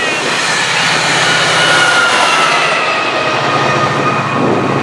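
SunRail commuter train passing: a steady rumble with a low engine drone and a whine whose pitch slowly falls.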